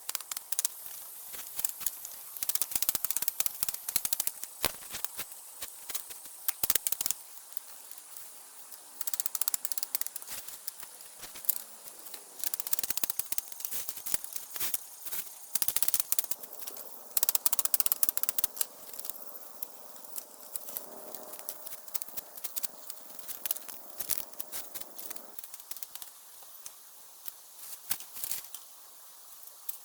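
Bamboo being split and worked by hand: irregular sharp cracks and clicks, some in quick runs.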